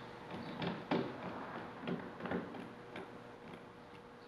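Faint, scattered clicks and small knocks from parallel bar clamps being tightened across a wooden door frame, drawing the joints closed. A faint steady hum runs underneath.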